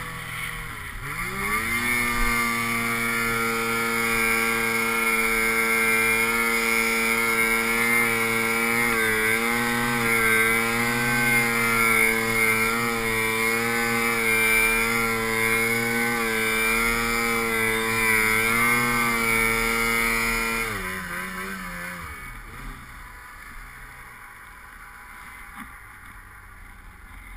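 Arctic Cat snowmobile engine heard from on board, revving up about a second in and running at high, fairly steady revs with slight wavering as it ploughs through deep powder. After about twenty seconds the revs fall away and the sound drops much quieter.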